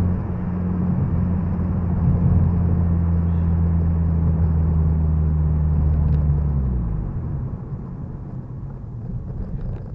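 Honda Civic Si's K20Z3 2.0-litre four-cylinder engine droning steadily with tyre and road noise, heard from inside the cabin. About seven seconds in, the engine note drops away as the car slows, leaving the road noise.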